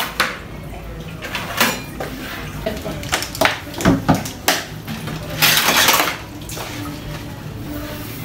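Dishes and cutlery clattering and knocking together as they are cleared and washed at a sink: a string of sharp clinks through the first half, then a short rush of running water lasting about half a second, about five and a half seconds in.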